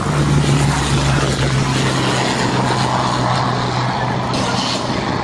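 Hawker Hurricane IIB's Rolls-Royce Merlin V12 engine running in flight, a steady low drone that weakens after about four seconds.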